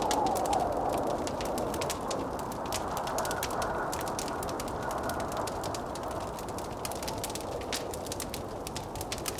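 Wood fire crackling with many sharp pops throughout, over a blizzard wind howling, with a wavering moan that is strongest at the start and then eases.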